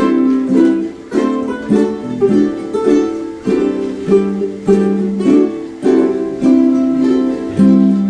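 Ukuleles strumming chords together in a steady rhythm, an instrumental stretch with no singing.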